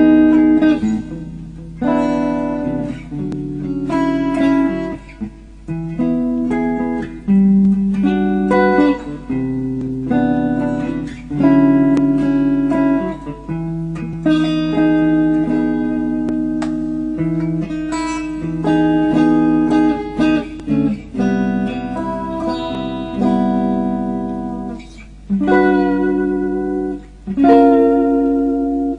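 Background music led by a plucked guitar, a run of picked notes and chords with steady rhythm.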